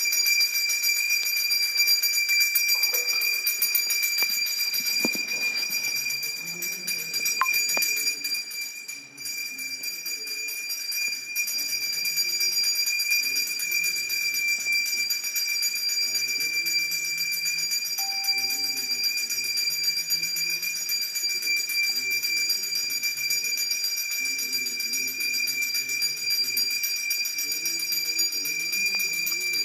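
Temple bells ringing without pause during an aarti, a constant high ringing, with voices singing the aarti hymn faintly underneath.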